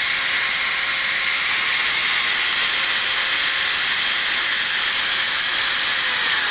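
Skil corded hammer drill running unloaded at full speed, held on by its trigger lock: a steady whine over a hiss. Near the end the whine starts to fall as the lock is released and the drill spins down.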